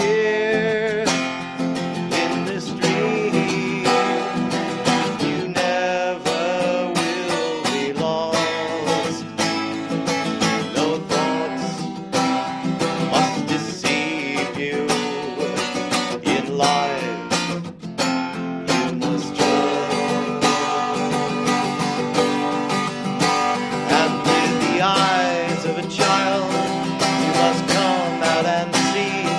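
Instrumental music: acoustic guitar strumming and picking in a country style, with a melody line over it and no sung words.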